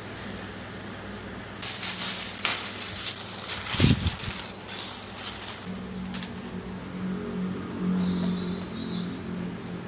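Thin plastic bag and clear plastic wrap crinkling and rustling as hands pull them off a printed comic book, with a dull thump about 4 seconds in. The crinkling stops a little over halfway, leaving a low steady hum.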